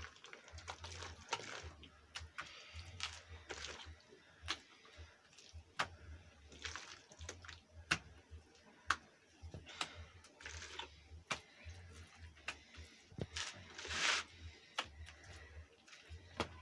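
Wet mud of clay soil and cow dung being worked and pressed on by hand: scattered small wet slaps and squelches, with a few longer smearing sounds.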